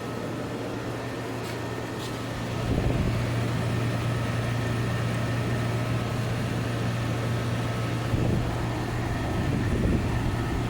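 A 1998 Kenmore window air conditioner running on low fan: its Bristol reciprocating compressor holds a steady hum under the even rush of the blower, which gets louder about three seconds in.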